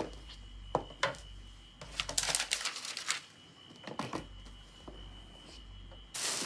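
Packaging being handled by hand: a few sharp taps and clicks, a stretch of rustling about two seconds in, and a louder rustle near the end.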